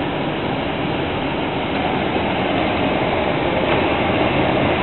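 Coleman Mach rooftop RV air conditioner's blower running on high, a steady rush of air through the Chill Grille ceiling vents. It grows slightly louder over the first couple of seconds and is quite noisy.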